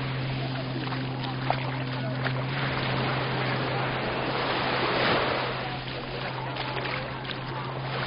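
Mediterranean surf washing onto the beach, a steady rushing wash that swells about five seconds in, over a constant low hum.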